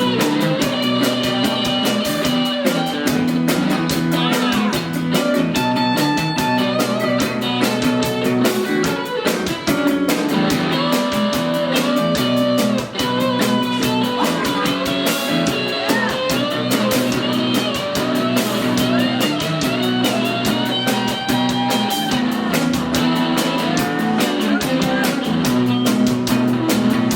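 A song played live on guitar in a reggae-rock style, with a steady even beat and a melody line sliding between notes over it.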